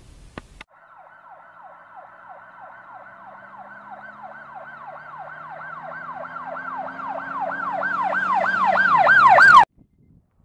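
An emergency-vehicle siren in a fast yelp, its pitch sweeping down about three times a second over a low hum. It grows steadily louder, then cuts off suddenly near the end.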